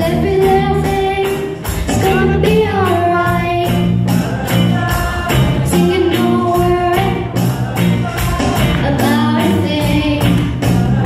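A woman singing a melody over a band backing with a steady beat and evenly ticking, tambourine-like percussion.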